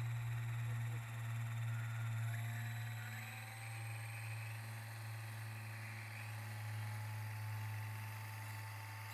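Ikarus ECO 7 electric model helicopter running on the ground: a steady low hum with a thin high motor whine that rises slightly about three seconds in.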